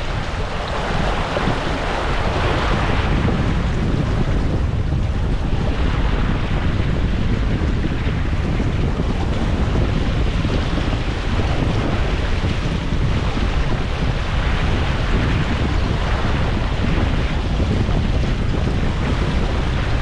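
Wind buffeting the microphone over the rush of water along the hull of a sailboat under way in choppy seas. Waves wash past the hull in louder surges every several seconds.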